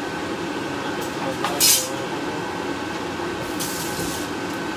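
Kitchen tap running briefly into a stainless steel sink, once in a short spurt and again for just under a second near the end, with a couple of light clinks of dishes before.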